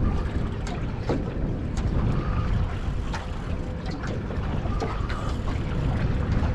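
Strong wind buffeting the microphone, a heavy low rumble, with scattered sharp clicks and knocks.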